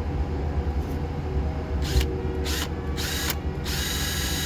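Power drill boring a small pilot hole into the centre-punched stub of a broken bolt, the first step before using a stud extractor. A few short bursts come first, then the drill runs steadily from about three and a half seconds in.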